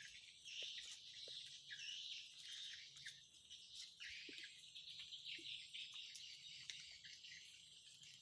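Faint outdoor ambience of insects and birds chirping: a soft, high, shimmering chorus with a few light clicks.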